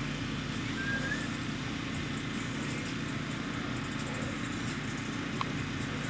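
Steady low hum of an idling vehicle engine, with a short faint chirp about a second in and a small click near the end.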